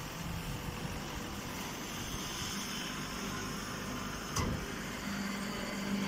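Hydraulic hay baler running, a steady mechanical noise from its motor and conveyor. There is a single sharp knock about four and a half seconds in, and a steady low hum joins about a second later.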